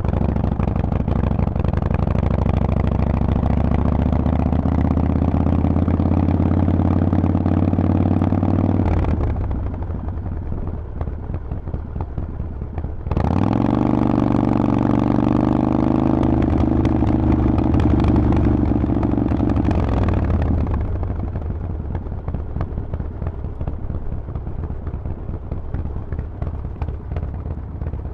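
Harley-Davidson Forty-Eight's 1200 cc V-twin through Vance & Hines exhaust pipes, accelerating twice under load. The first pull climbs slowly in pitch and drops off the throttle about nine seconds in. The second opens sharply at about thirteen seconds and climbs again before easing back to a quieter run near the end.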